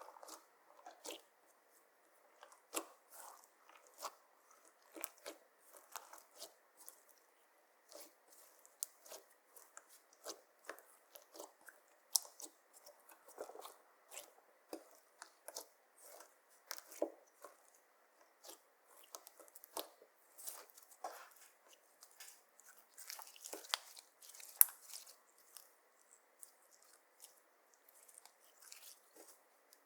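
Clear slime, mixed with eyeshadow and glitter, being kneaded and pressed by hand, making irregular sticky clicks and small crackling pops, a few of them sharper.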